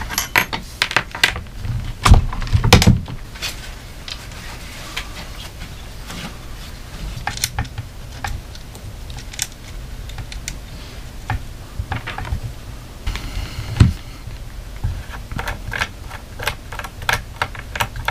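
Irregular clicks, taps and a few louder knocks of a scope and its mounting rings being handled and fitted onto an airsoft rifle, with hard plastic and metal parts knocking together.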